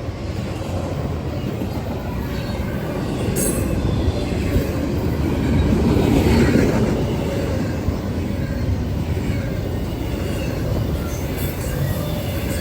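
Intermodal freight train passing: a steady rumble of wheels on rail that swells to its loudest about halfway through.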